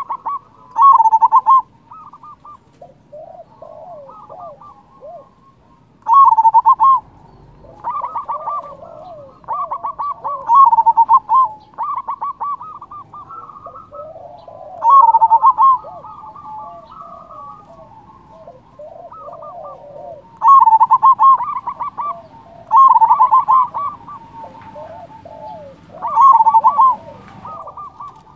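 Local Indonesian zebra dove (perkutut lokal) singing its cooing song: loud phrases of quick rolling notes, each about a second long, repeated every few seconds, with fainter, lower coos between them.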